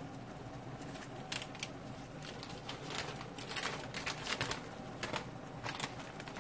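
Water boiling in stainless steel pots of instant ramen noodles just dropped in, with irregular bubbling pops and crackles over a steady hiss.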